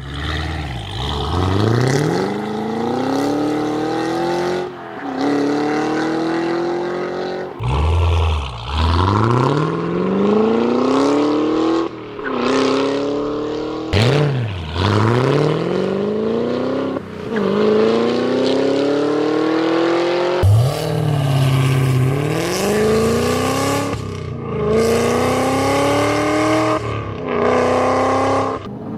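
Supercharged 6.2-litre V8 of a Cadillac CT5-V Blackwing accelerating hard, pitch climbing through each gear and dropping at the shifts. Short runs are cut together, some heard from outside and some from inside the cabin, with the stock exhaust and with Stainless Works aftermarket exhausts.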